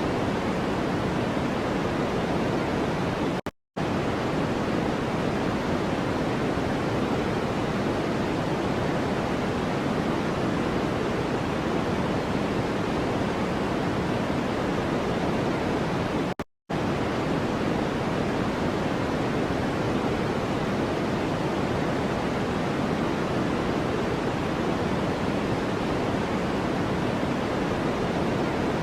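A steady hiss of generated noise, heavier in the low end than pure white noise, cut by two brief dropouts to silence, one about three and a half seconds in and one just past the middle.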